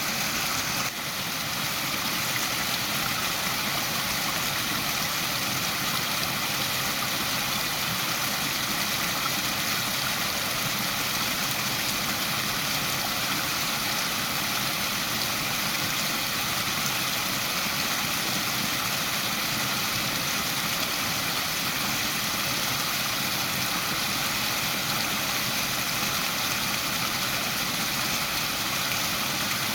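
Steady, continuous rush of a waterfall, water falling and splashing without let-up, with a brief drop in level about a second in.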